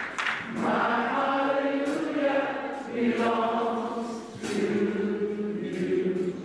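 Church choir singing long held notes in phrases of a second or two each.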